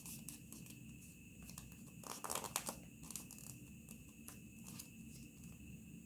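Sheet of origami paper being handled and folded: scattered small crackles and clicks, with a louder burst of crinkling a little over two seconds in.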